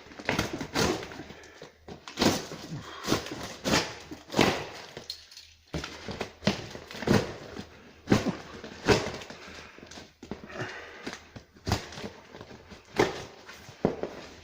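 Irregular knocks, thuds and rustles of boxes and packaging being handled and pulled open by hand.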